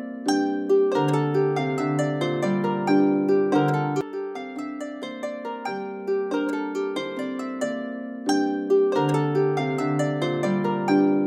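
Background music: a plucked-string melody with a harp-like sound over low bass notes, pausing briefly about four and eight seconds in.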